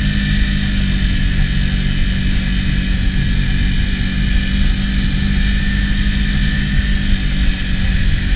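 Can-Am Outlander 650 ATV on Apache 360 tracks, its V-twin engine running steadily at cruising speed through snow, with a steady high whine over the engine.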